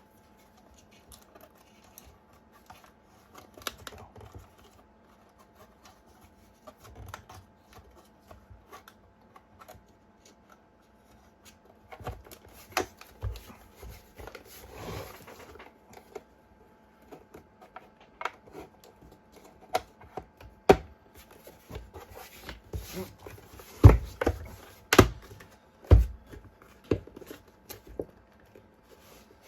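Scattered clicks, taps and knocks of an e-bike battery pack's case and parts being handled and fitted back together. Sparse at first, busier from about halfway, with a few heavier knocks near the end.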